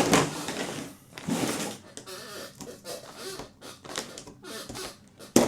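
Rubber screen spline being pulled out of a window screen frame's channel: scraping and rattling, with a sharp rasp at the start, another about a second in, and a short loud one near the end, fainter scratching in between.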